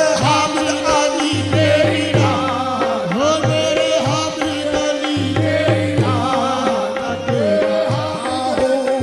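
Sufi devotional song music: a wavering melodic instrumental passage over a steady held drone, with a regular drum beat underneath.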